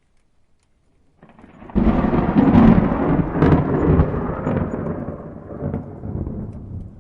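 A thunderclap: a rumble begins about a second in, breaks into a loud crackling peal, then rolls on and slowly fades.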